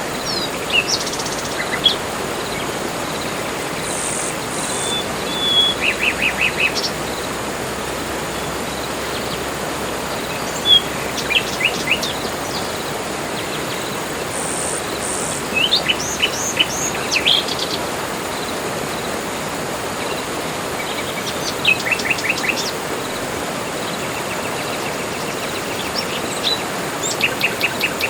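Forest birds calling: short bouts of chirps and quick runs of repeated notes every few seconds, over a steady hiss.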